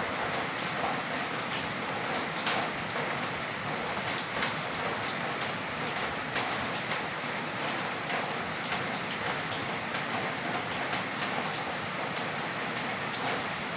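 Steady light rain falling, an even hiss with many small drops ticking on a surface.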